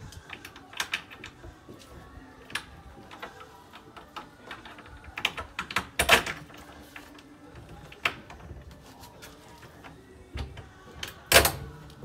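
A ceiling fan being handled and bolted to its metal wall bracket: irregular clicks and knocks, a quick cluster around the middle and the loudest knock near the end.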